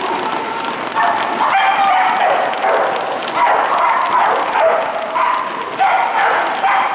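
A small dog barking over and over in a steady string of short, high barks as it runs an agility course.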